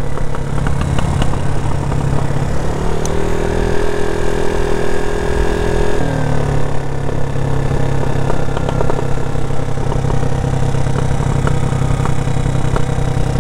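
Nova Motors GT4 scooter engine running under way, its note rising a few seconds in and dropping back about midway, with no stuttering now that a replacement CDI ignition unit is fitted.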